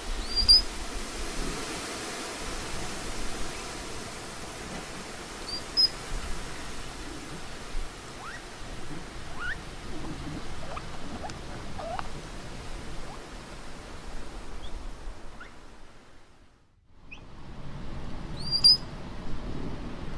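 Patagonian mara calls: a few short, high chirps and several quick rising squeaks over a steady hiss of background noise, which fades out briefly about two-thirds of the way through.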